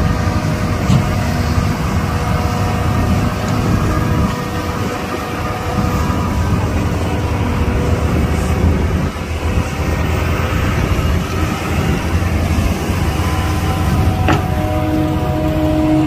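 Heavy diesel construction machinery running: a steady low engine rumble with a few steady whining tones over it, and a single brief knock near the end.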